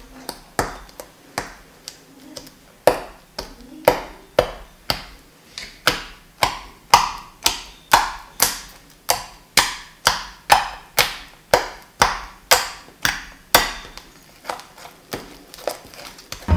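Homemade sugar-and-toothpaste slime being pressed and slapped by hand: sharp sticky pops and slaps, about two a second, getting louder about three seconds in.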